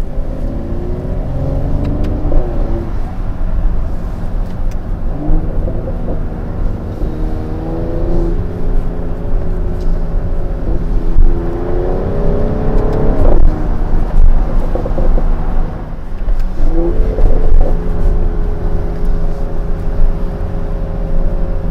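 Mercedes-AMG GLE 53 Coupé's turbocharged 3.0-litre inline-six pulling hard in several bursts, its pitch rising and then dropping back at each gearshift. A constant low road rumble runs underneath. Near the end the engine settles to a steady cruise.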